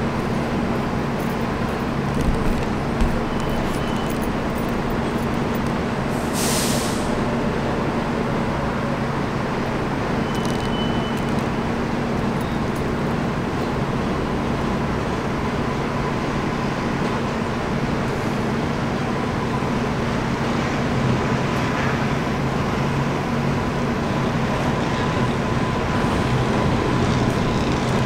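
New York City Subway trains running on elevated track some way off: a steady rumble with a low hum, with a short hiss of air about six seconds in. A faint steady whine grows in the second half as a train comes along the flyover.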